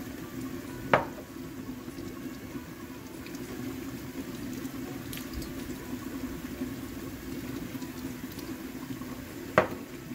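Large aluminium pot of spiced water near the boil, bubbling steadily. Two sharp knocks stand out, one about a second in and one near the end.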